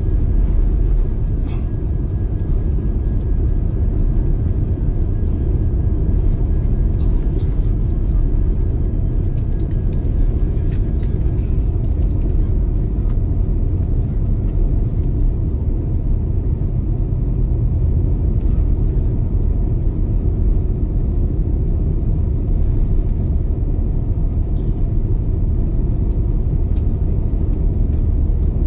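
Cabin noise of an Airbus A350 rolling on the ground just after landing, heard from a window seat: a steady low rumble from the wheels and Rolls-Royce Trent XWB engines, with a faint high tone that stops about eleven seconds in.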